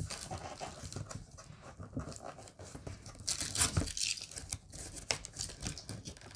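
Cardboard box being pried open by hand: the end flap scraping and rustling against the box, with scattered scuffs and rips, busiest about three and a half seconds in.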